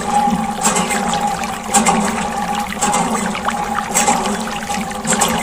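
Thin stream of water pouring and splashing onto a small plastic toy tractor, trickling off it onto wet sand, with a steady hum underneath.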